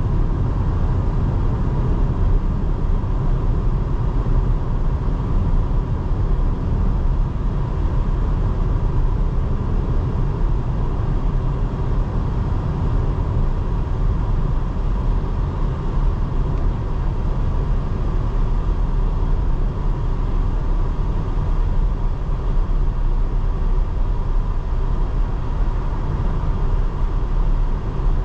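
2024 Porsche Cayenne driving at a steady pace: a steady low rumble of road, tyre and engine noise, with no revving or change in speed.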